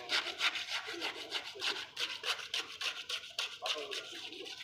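A small trowel scraping and smoothing wet cement around the base of a steel pole, in short repeated strokes, about three a second.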